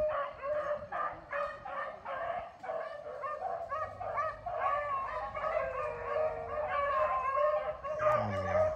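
A pack of rabbit dogs baying and yelping together on a rabbit's scent trail, many overlapping calls with no break.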